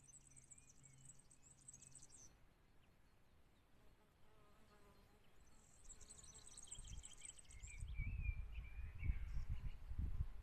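Faint high-pitched insect trilling in two rapid buzzing bursts, with a few thin bird chirps and a low rumble in the second half.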